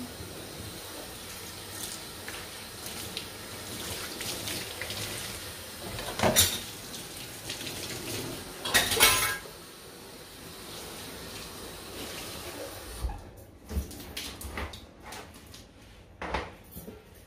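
Water running from a kitchen tap into a stainless-steel sink as dishes are washed by hand, with a clatter of dishes and cutlery about six seconds in and again about nine seconds in. The tap is shut off about thirteen seconds in, leaving a few knocks of dishes being handled.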